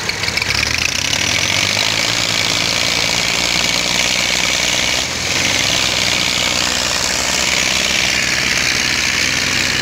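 Two farm tractors' diesel engines, a Massey Ferguson 240 and a green tractor, running hard under heavy load as they pull against each other on a chain, with the rear tyres spinning in loose dirt. The sound is a steady, continuous engine drone.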